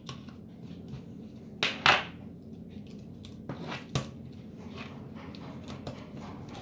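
Plastic clicks and knocks of hands handling an electrical contactor, its contact block and wires, over a faint steady background noise. The loudest pair of knocks comes near two seconds in, and there is a sharp click about four seconds in.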